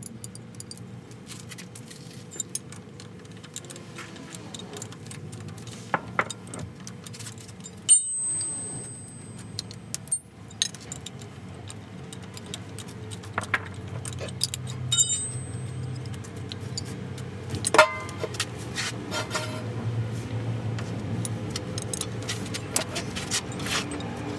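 Metal tools and parts clinking and clanking during hands-on repair work, with scattered clicks and several sharp metallic knocks, two of which ring briefly. A steady low hum runs underneath.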